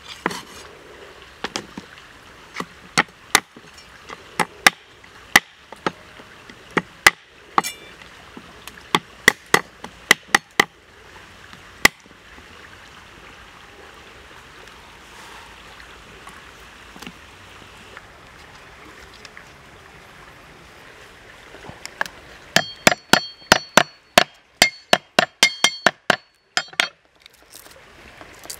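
Heavy meat cleaver chopping a raw black chicken on a thick wooden chopping block: sharp, irregular chops through the first half, a pause, then a quick run of about four chops a second near the end, some with a short metallic ring.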